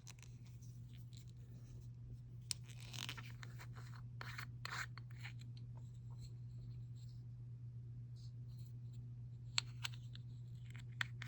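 Faint handling sounds of small plastic jars of chrome nail powder being picked up and turned: scattered light rubs, scrapes and clicks, a few of them close together, over a steady low hum.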